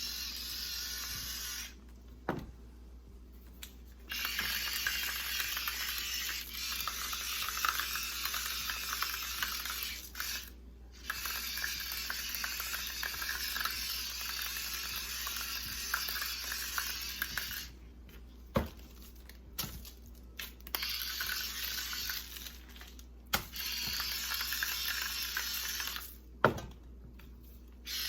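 Mushrooms sizzling in olive oil in a frying pan: a steady hiss that cuts out abruptly several times, with a few sharp clicks and knocks.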